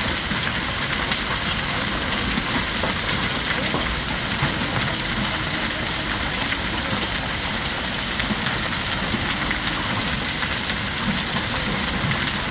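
Heavy hail falling with rain: a steady dense rush with scattered sharp ticks of hailstones striking.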